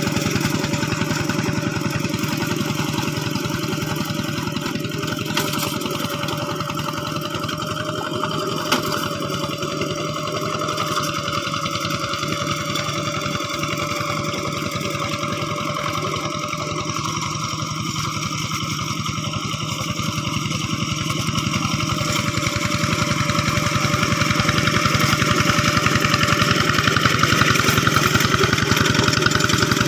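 Old single-cylinder diesel engine of a two-wheel hand tractor running steadily, growing a little louder toward the end. There is one sharp click about nine seconds in.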